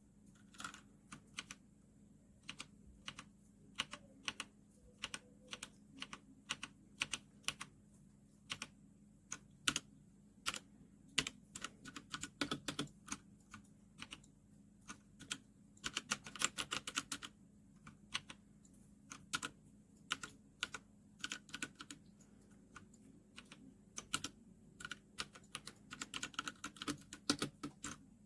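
Typing on a MageGee 75% mechanical gaming keyboard with red switches: irregular single key presses, with quicker runs of keystrokes around the middle and again near the end.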